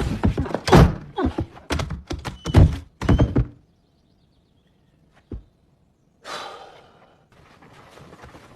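A quick run of thuds and knocks for about three and a half seconds, then the sound cuts out with one knock in the gap, then a brief rushing noise that fades.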